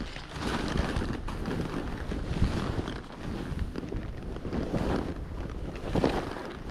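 Skis slicing through deep powder snow in a steady whoosh, with wind rushing over the microphone and snow spraying against it; it swells several times.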